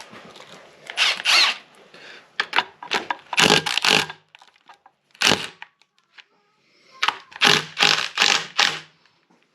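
Metal-on-metal clacking in short irregular clusters as the loose connecting rod of a Mopar 360 small block is rocked by hand on its crank journal. The excess play is the sign of a spun rod bearing.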